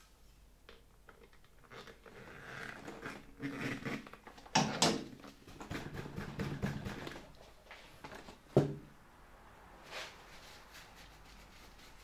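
Handling noises at a workbench as parts of an old handheld vacuum cleaner and tools are picked up and set down: scattered clicks and rustling, with two sharp knocks, about four and a half and eight and a half seconds in.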